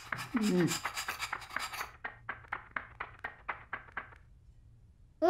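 Cartoon brushing sound effect: a run of quick scratchy strokes of a small brush through feathers, about five a second, fading out about four seconds in. A short falling vocal sound comes about half a second in.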